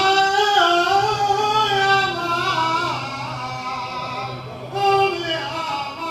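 A solo voice singing a long, wavering melodic line in a traditional Kuwaiti folk song. The voice eases off about three seconds in and comes back briefly near five seconds.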